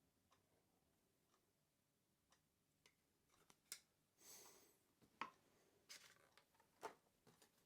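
Faint clicks and taps of small laptop parts being handled during reassembly, starting a few seconds in, with one brief scrape in the middle.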